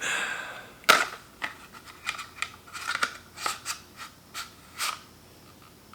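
Glock 26 pistol being pushed into and worked in a Kydex LightTuck holster, making plastic clicks and scrapes. A sharp click comes about a second in, followed by a string of smaller clicks and scraping. The fit is tight.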